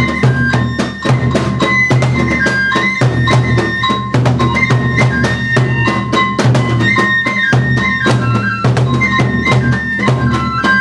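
Japanese kagura music: a bamboo flute melody of held, stepping notes over rapid taiko drum strokes.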